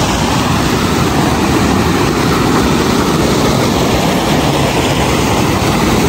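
Mountain stream rushing over rocks in small cascades: a loud, steady sound of white water.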